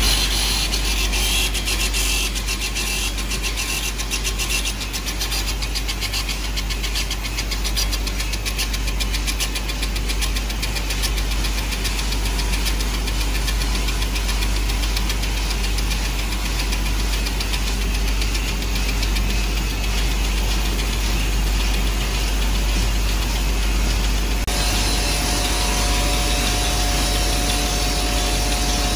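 Automatic gem shaping machine running steadily, its motor and grinding head shaping crystal points into hexagonal prisms, with rapid fine ticking through the first part. Near the end the sound changes and a steady whine at two pitches comes in.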